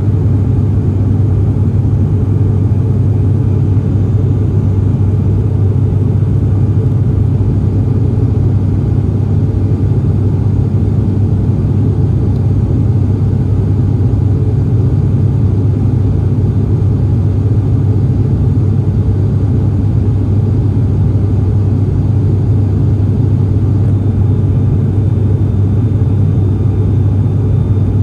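Turboprop airliner's engines and propellers heard inside the passenger cabin: a loud, steady low drone that does not change.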